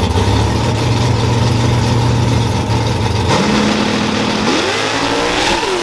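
Drag-racing pickup truck's engine held at a steady rpm on the starting line. About three seconds in the note changes sharply, and a second or so later it launches, revving up with the pitch climbing as it accelerates away down the strip.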